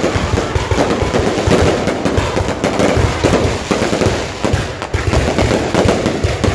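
Fireworks going off: a dense, continuous run of rapid crackling and popping with low thumps.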